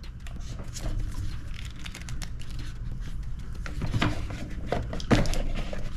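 Plastic clicks and rustling as the battery charger's lead and plug connector are handled and snapped together, with two sharper clicks about four and five seconds in.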